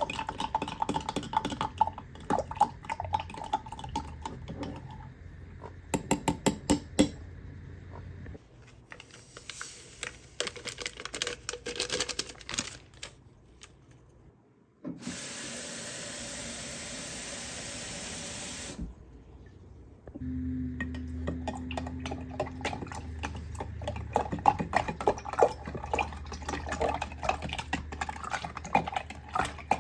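Clicks and clatter of things being handled, with about four seconds of steady rushing water, like a tap running, around the middle.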